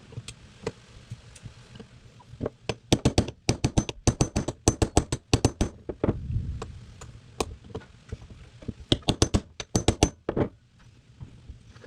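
Hand tools tapping and knocking on carburetor parts: quick runs of sharp taps, the longest lasting about three seconds, then a few single knocks and another run near the end.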